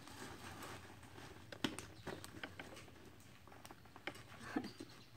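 Faint rustling and a few small clicks of a nylon strap being wrapped around a bicycle handlebar and pulled through, the fabric basket shifting against it.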